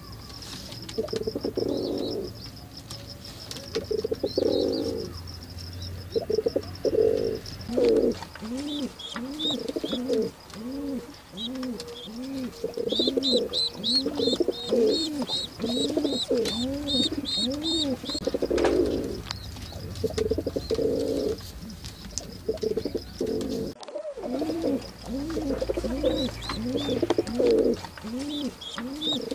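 Domestic pigeons cooing over and over in low, rounded calls, about two a second for much of the time. High thin chirping runs over them, thickest through the middle.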